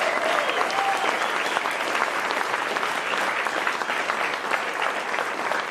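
Audience applauding steadily, with some cheering in the first second.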